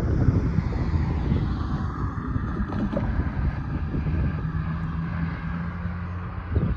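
Wind buffeting the microphone over road traffic, a dense gusty rumble; a low steady hum joins about two-thirds of the way through.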